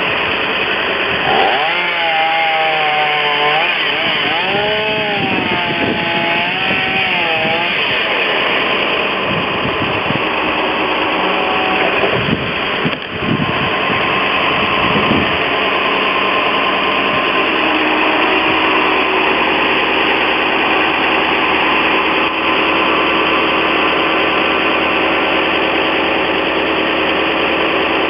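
Chainsaw running, its pitch rising and falling as it revs between about one and eight seconds in, over a steady engine running throughout.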